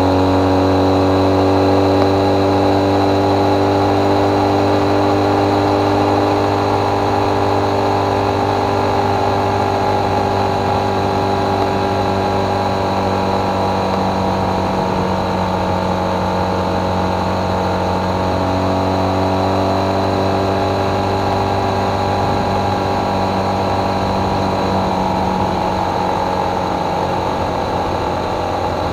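Motorcycle engine running at a steady cruising speed, its hum drifting slightly in pitch as the speed changes, over a steady hiss of wind and road.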